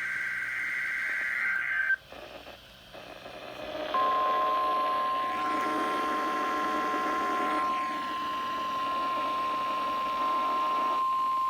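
NOAA Weather Radio alert broadcast through receiver speakers. A warbling SAME data burst ends about two seconds in. After a short gap, the steady 1050 Hz warning alarm tone comes on about four seconds in and holds over radio static.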